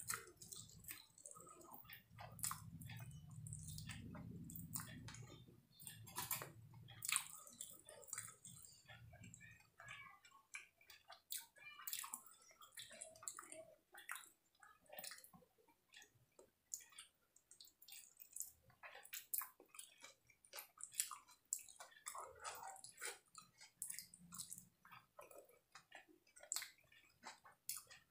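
Close-miked chewing and wet mouth sounds of a person eating saucy chilli chicken and fried rice by hand: irregular soft smacks and clicks, faint throughout, with a low hum during the first several seconds.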